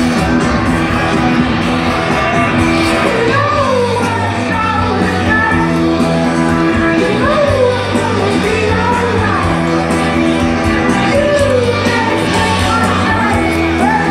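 Live rock band playing through a festival PA, with a male lead singer over guitars, bass and drums, heard from within the crowd.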